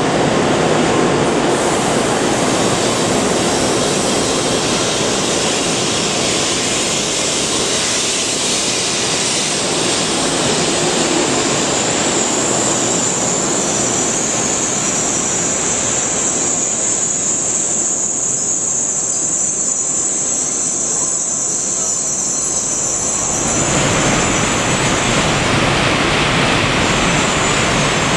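N700S Shinkansen train gliding in along the platform and braking toward a stop: a steady rush and rumble of the passing cars, joined about ten seconds in by a thin high-pitched squeal that fades out near the end. About 24 seconds in, a louder, wider rushing noise rises sharply.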